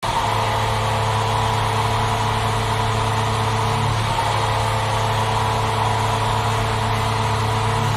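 Hockey arena goal horn blaring, a steady low-pitched blast, over a cheering crowd.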